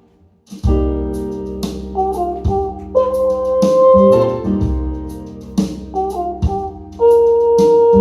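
Instrumental passage of a recorded song between sung lines. After about half a second of near silence, the band comes in with bass and chords, and a melody instrument holds long notes.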